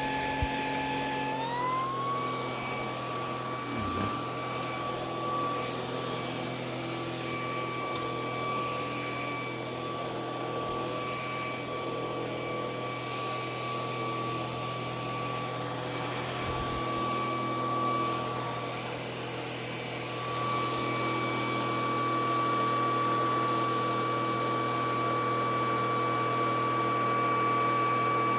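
Vacuum cleaner motor running with a steady high whine, its pitch rising to a higher speed about a second and a half in and then holding.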